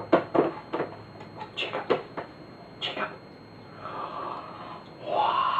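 A person making funny mouth and nose noises while eating: a quick run of short puffs and snorts, then near the end a louder voiced sound that rises and falls in pitch.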